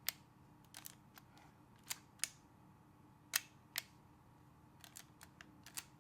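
Leica M3 rangefinder's mechanical cloth focal-plane shutter being fired over and over: a series of short, sharp clicks, several coming in pairs a fraction of a second apart.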